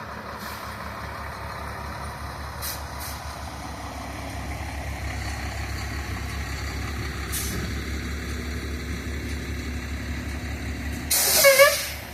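A heavy truck's engine rumbling low and slowly growing louder as it pulls up. About eleven seconds in comes a loud, short hiss of air brakes.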